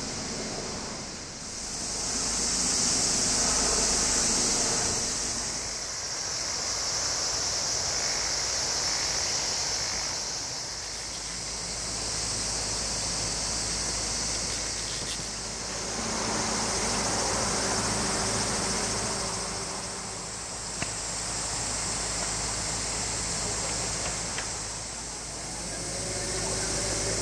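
Outdoor chorus of insects, a high-pitched steady buzzing that swells and fades every few seconds, over a steady rushing hiss.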